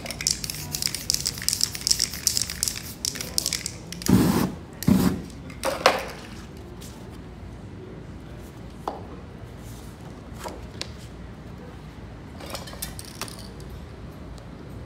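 Aerosol spray-paint can hissing in short bursts, followed by a few loud thuds and rustles of poster board and paper being handled about four to six seconds in, with scattered light clicks afterwards.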